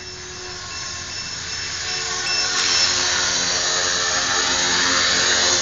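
Align T-REX 450 electric RC helicopter's motor and main rotor whining and whirring, growing louder over the first few seconds as it comes in close near the ground.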